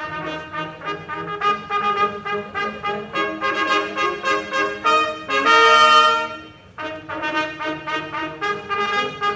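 Trumpet playing an introduction of short, quickly repeated notes, with one loud held note about five and a half seconds in that cuts off after about a second before the quick notes resume.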